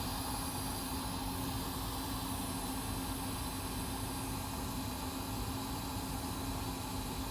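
Steady machine hum with an even hiss, running unchanged throughout.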